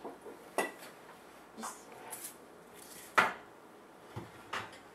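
Metal cake pans clanking against the oven's wire rack as they are set in and the rack is slid: several separate knocks and clanks, the loudest a little past three seconds in.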